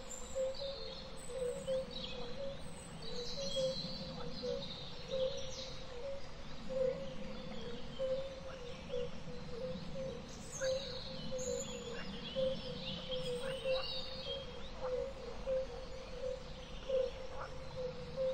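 Natural outdoor ambience: many birds chirping and calling, some in quick high runs, over a steady background chorus of rapid low pips.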